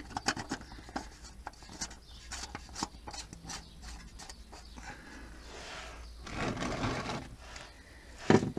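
New MAN spin-on oil filter being turned onto its threaded mount by hand: a run of small clicks and dry rubbing as the hand grips and twists the canister, then a longer rubbing scrape lasting a second or two near the end.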